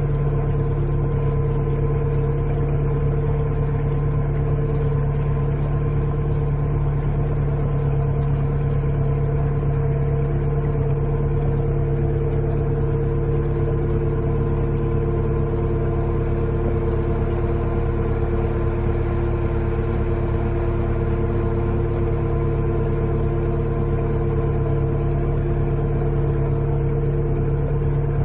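The 80 HP four-cylinder inboard/outboard engine of a 1965 Thompson Sea Lancer wooden runabout running steadily while under way, heard from the cockpit.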